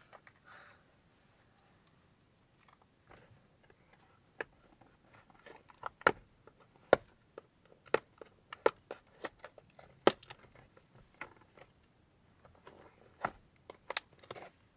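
A package being handled: scattered sharp clicks and crinkles, starting about four seconds in and loudest around the middle.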